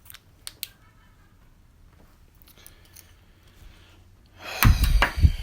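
Two faint clicks, then about four and a half seconds in a loud burst of knocking and rustling with heavy low thuds, lasting under a second.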